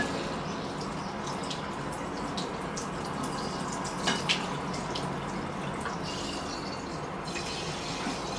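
Kitchen tap running steadily into a sink while plates are washed, with two short clinks just after four seconds in.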